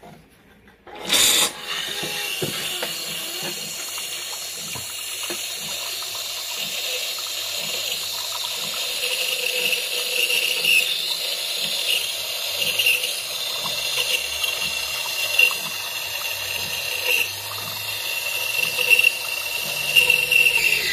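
Automatic bean-to-cup coffee machine brewing and dispensing: a steady hiss of its pump and hot liquid pouring into the cup. It starts suddenly about a second in.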